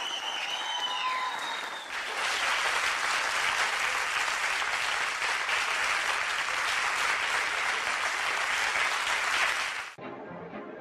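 Theatre audience applauding loudly, with a few voices calling out over the first couple of seconds; the applause cuts off abruptly near the end.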